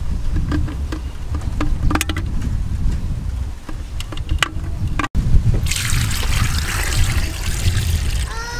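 Eggs clicking against one another as they are packed by hand into a clay pot, then, from about five and a half seconds in, coconut water pouring from a green coconut onto the eggs in the pot. A steady low rumble runs underneath.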